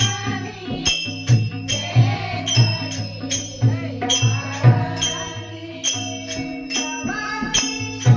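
Devotional bhajan music: a woman sings a Marathi abhang over a steady beat of jingling hand cymbals and drum, with held keyboard-like notes underneath.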